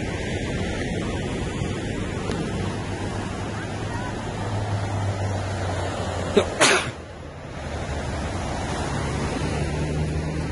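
Steady wind and sea noise, with a low steady hum joining about four seconds in. A short sharp burst about six and a half seconds in, then the noise briefly drops.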